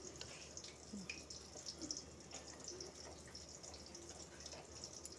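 Faint clinks and liquid swishes of a metal spoon stirring a thin mustard-powder paste in a stainless-steel bowl.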